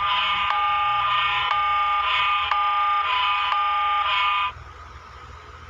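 Emergency alert alarm tone: a harsh chord of steady tones pulsing about once a second, cutting off suddenly about four and a half seconds in.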